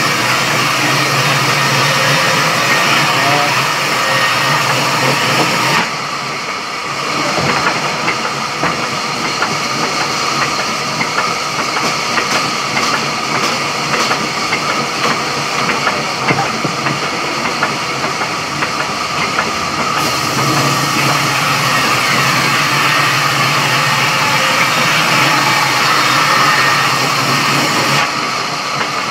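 Sawmill saw table running loudly and steadily while cutting a log. The sound shifts character a few times, about six seconds in, around twenty seconds in, and again near the end.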